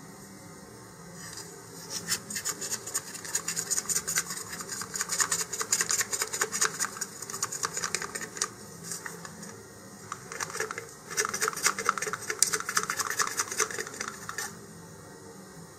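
A rod tamping plasticine clay nose weight down inside a hollow model rocket nose cone: a fast run of short rubbing, scraping strokes that starts about two seconds in, eases off briefly in the middle, and stops shortly before the end.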